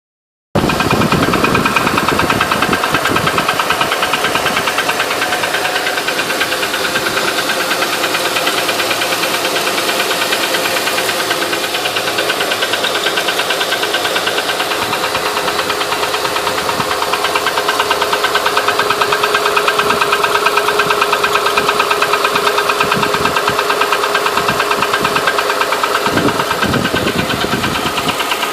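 2008 Honda Ridgeline's 3.5-litre V6 engine running steadily, with a rapid, even ticking from the engine.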